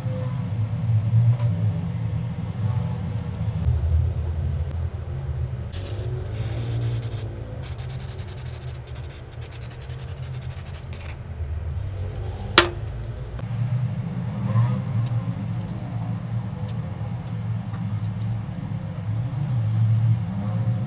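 Aerosol can spraying onto a phone screen, a hissing spray in a few short bursts for about five seconds, then a sharp click. A steady low rumble runs underneath throughout.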